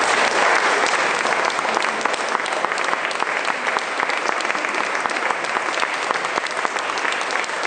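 Audience applauding, many hands clapping together, a little louder at the start and then holding steady.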